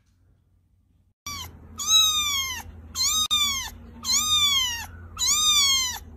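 Very young kitten mewing, four high-pitched calls about a second apart, each rising then falling in pitch, starting about a second in.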